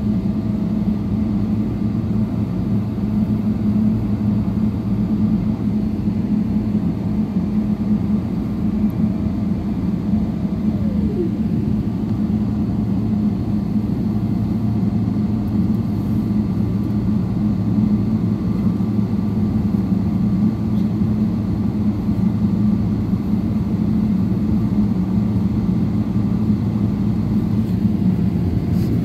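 Jet airliner's engines running while it taxis, heard inside the passenger cabin as a steady low drone.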